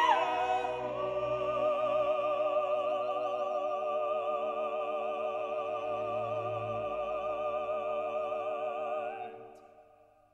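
Operatic singing over orchestral accompaniment: one long held note with a wide vibrato that fades out near the end.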